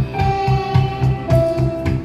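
Electronic keyboard playing a melody in held notes over a steady drum-and-bass beat.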